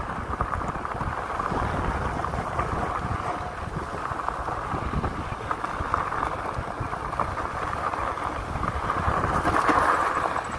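Two-wheel-drive fat-tire e-bike riding on a sandy desert trail: steady wind rush and rumble on the microphone, tyre and frame noise over rough ground, and a steady whine, a little louder near the end.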